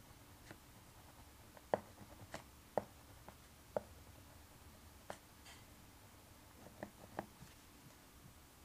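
Handwriting on paper in a journal, heard close up: faint scratching of the writing tip with a scattering of short, sharp ticks at irregular intervals.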